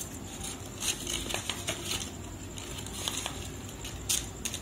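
Scattered light clinks and taps of a steel spoon and steel kitchen bowls being handled, the loudest near the end.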